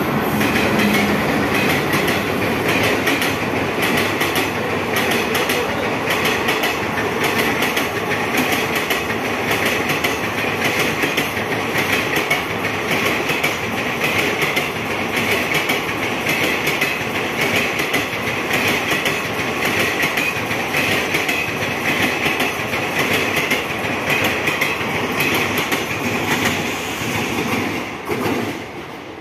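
Express passenger coaches running past close by: a steady rumble of wheels on rails with a rapid clickety-clack over the rail joints, dropping away near the end.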